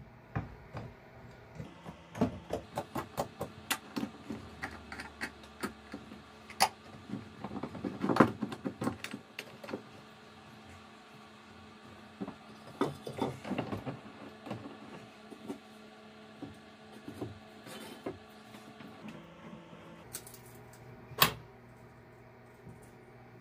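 Metal clanking and knocking as a small clamp is fitted to a rusty crosscut saw blade and the blade is moved against the bench, with one louder knock near the end, over a faint steady hum.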